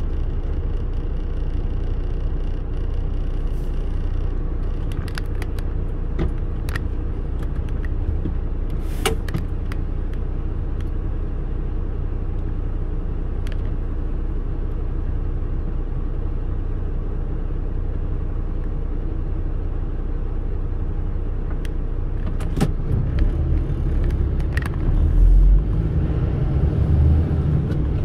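Car cabin noise with the engine idling while the car waits at a junction, with a few scattered sharp clicks. About 22 seconds in the low engine and road rumble grows louder and uneven as the car pulls away.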